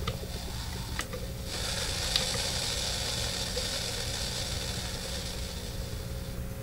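Hum with a loud hiss that comes in sharply about a second and a half in and drops away near the end: noise from a 1970s DeArmond 1802 Weeper wah pedal through an amp as its potentiometer is turned by hand into the part of its sweep where it only adds noise, the pedal's fault. Two small clicks from the pot being handled come in the first second.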